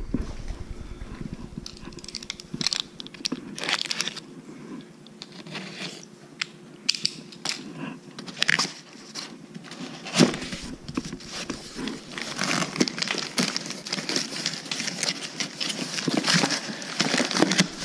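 Cardboard box flaps scraping and plastic packaging bags crinkling as parts are handled and pulled from a box, with scattered small clicks. One sharp knock about ten seconds in.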